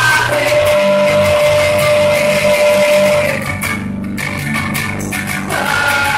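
Live rock song performed solo: a man singing over a strummed electric guitar, with one note held for about three seconds near the start. The sound thins briefly about four seconds in, then the singing and guitar pick up again.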